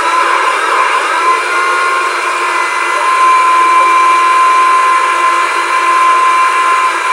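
Handheld electric power saw running steadily with a high, even whine.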